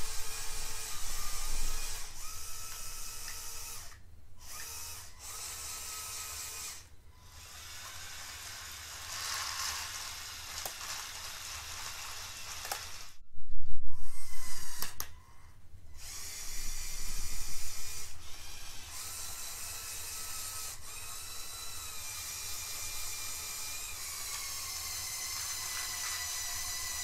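Electric motors and plastic gear trains of a LEGO Technic Liebherr R 9800 excavator model whining as it drives and works its arm, the pitch shifting as the movements change. About halfway through there is a much louder burst lasting about a second.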